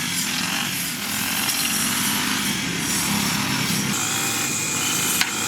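A power tool running steadily, with one sharp click about five seconds in.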